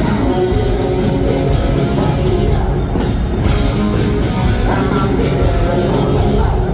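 Hard rock band playing live in a stadium, heard from the stands: loud electric guitars, bass and drums driving steadily on.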